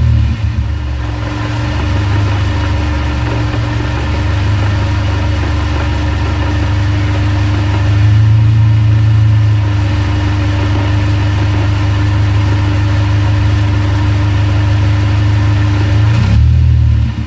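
Honda S2000 running, its engine and drivetrain giving a steady low drone with a constant whine above it; the owner attributes a rattle in this noise to the transmission or propshaft. The sound swells about eight seconds in and dips briefly near the end.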